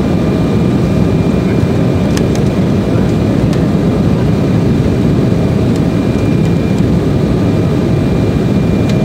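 Steady cabin noise inside an Embraer 190 airliner in flight: the drone of its twin GE CF34 turbofans and rushing airflow over the fuselage, with a faint steady whine and a few faint clicks.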